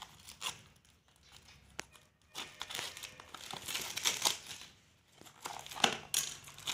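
Plastic shrink wrap crinkling and tearing as it is pulled off a cardboard sweets box, in irregular bursts, loudest near the end.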